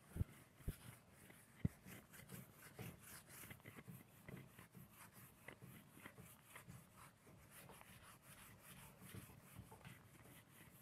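Faint, scratchy rubbing of an eraser wiping a whiteboard, with a few light knocks in the first two seconds.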